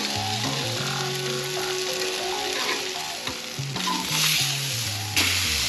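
Burger patties and vegetable slices sizzling on a stainless-steel portable gas grill, the sizzle swelling for a moment about four seconds in and again just before the end.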